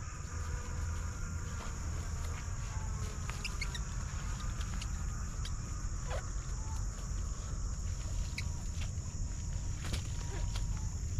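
A steady high-pitched insect drone over a low rumble on the microphone, with scattered clicks and rustles and a few brief bird chirps, one a quick falling whistle about six seconds in.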